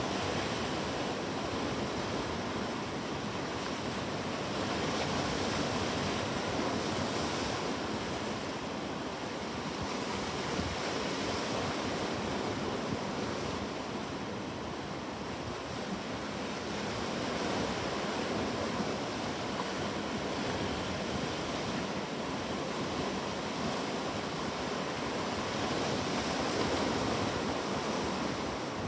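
Ocean waves breaking on a shore: a continuous surf wash that swells and eases every several seconds.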